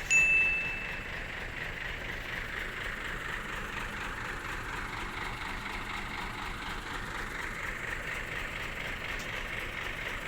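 Heavy vehicle's engine running steadily, heard as an even hum. A single high beep sounds at the very start and stops about a second in.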